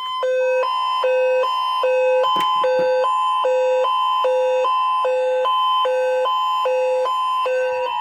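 Emergency Alert System attention signal: a loud, steady two-note tone held throughout, with a beep alternating between a low and a high pitch over it, sounded to introduce an Amber Alert broadcast.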